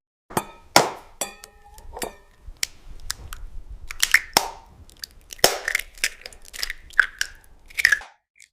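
AI-generated ASMR sound effects: an irregular run of crisp crunches, clicks and squishy bites, with a few short ringing taps early on. The sound cuts off abruptly about eight seconds in.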